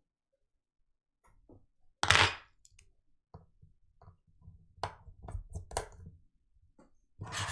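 Light knocks and clicks of parts and tools being handled on a workbench. A sharp, noisy rustle or scrape comes about two seconds in, the loudest sound, followed by a run of small knocks and another rustle near the end.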